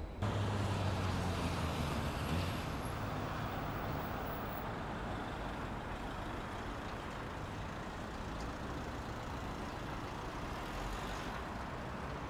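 Steady running noise of a vehicle in motion, starting suddenly, with a low hum over it for the first two to three seconds.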